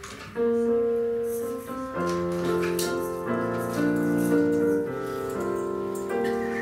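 Keyboard playing a short introduction of held chords that change every second or so, starting about half a second in.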